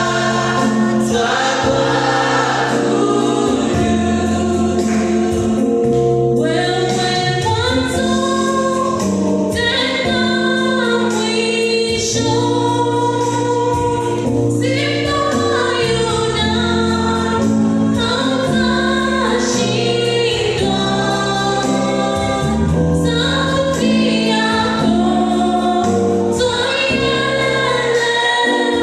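Choir singing a gospel worship song with instrumental accompaniment and a steady bass.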